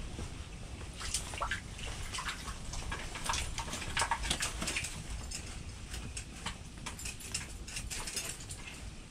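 Irregular small clicks, scrapes and rustles of hands handling ice-fishing tackle and clothing, over a low steady rumble.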